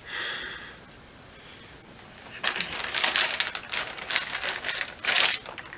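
Empty plastic lip balm tubes tipped out of a plastic bag, clattering against one another and onto the tray and table in a rapid, dense rattle of clicks that starts about two seconds in.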